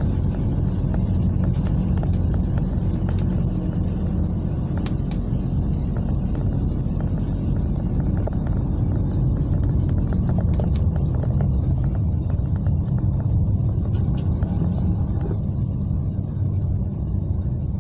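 Car driving on a wet road, heard from inside the cabin: a steady low rumble of engine and tyres, with scattered light ticks of rain on the windshield.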